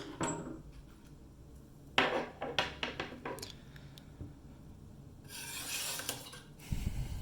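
A screwdriver working the retaining screw down the shackle hole of an ABUS 72/40 padlock being taken apart, with metal clicks and scraping. A cluster of sharp clicks comes about two seconds in, and a rasping scrape comes near six seconds.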